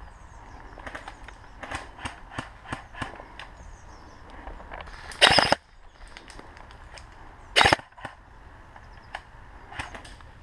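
Gas blowback airsoft rifle firing close by: two short bursts of rapid shots, about half a second long a little after five seconds in, and a briefer one about two and a half seconds later. Lighter scattered snaps and clicks come in between.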